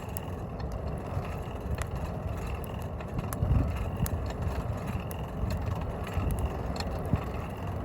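Juniper-wood forge fire burning, with scattered sharp crackles over a steady low rumble.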